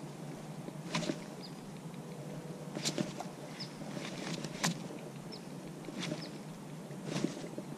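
Soft, irregular clicks from a Shimano Curado DC baitcasting reel and rod as a jerkbait is twitched and reeled in, over quiet outdoor background. Short, high bird chirps come every second or two.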